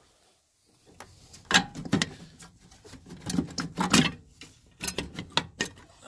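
Metal handling noise from an Atwood RV furnace's burner and gas-valve assembly being worked loose and pulled out of its housing: irregular clunks, clicks and rattles starting about a second in.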